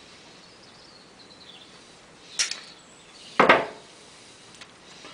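Two short metallic clatters of small hand tools being handled and set down on a concrete floor, the second the louder, followed by a light click near the end.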